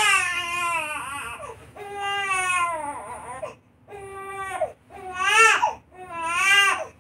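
Two-month-old baby crying in about five loud wails with short breaks for breath. The first two wails are long and fall in pitch, and the loudest comes about five seconds in.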